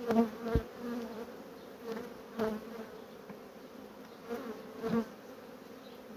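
Honeybee colony buzzing in an open hive, a steady low hum with single bees buzzing past close by. Several short wooden knocks, the loudest near the start and again about five seconds in, as the frames are set in place and pushed together.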